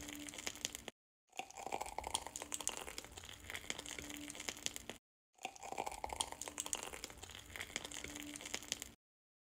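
Piping bag crinkling as it is squeezed, pressing whipped body butter into a glass jar: faint crackles and small squishy clicks, cut off twice by brief dropouts.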